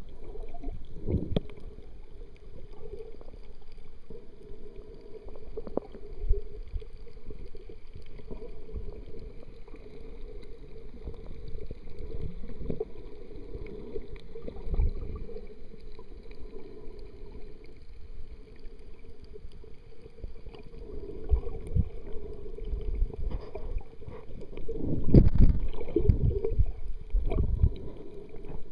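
Muffled underwater noise heard from below the surface: low rumbling with irregular bumps and swishes of moving water, louder for a few seconds near the end.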